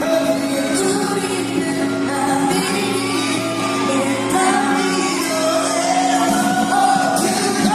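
Pop song performed live in a large hall: singing over the band or backing track, with fans shouting and whooping.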